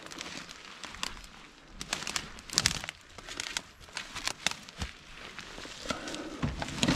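Dry brush and thorny branches crackling and rustling as a person pushes and crawls through dense undergrowth, with irregular sharp snaps and clicks.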